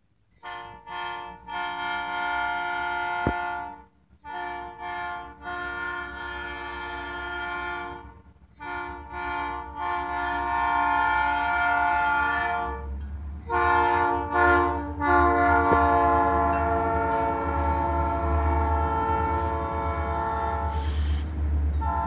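Ferromex diesel freight locomotive's air horn sounding a chord in a long series of blasts: a few short toots, then long held notes with brief breaks. From about halfway through, the locomotives' engine rumble and wheel noise grow louder as the lead units pass close by.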